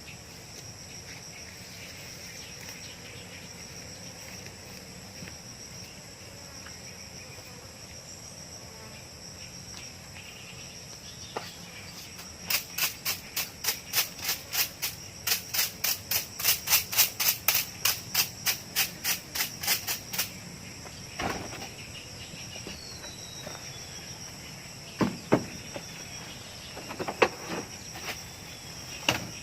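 Insects chirring steadily in a high, even drone. Partway through there is a run of about two dozen quick sharp knocks, about three a second for some eight seconds. A few single knocks follow near the end.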